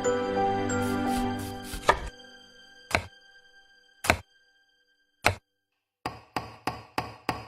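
Background music. A held passage fades out about two seconds in, leaving three sharp, separate clicks a second or so apart over near silence. A quick, even run of plucked or tapped notes starts about six seconds in.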